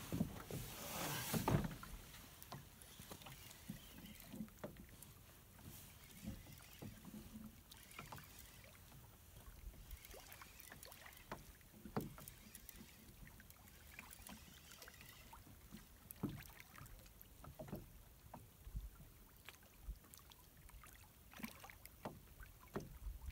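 Small boat on open water, with quiet water lapping at the hull and scattered light knocks and clicks. A louder rustling noise comes in the first two seconds.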